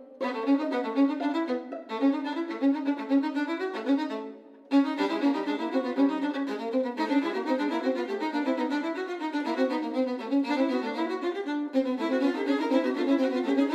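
Fast, busy solo violin music, a quick run of notes that stops for about half a second a little past four seconds in, then carries on.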